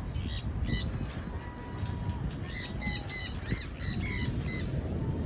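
Parrots squawking: two harsh calls near the start, then a quick run of about seven squawks in the middle.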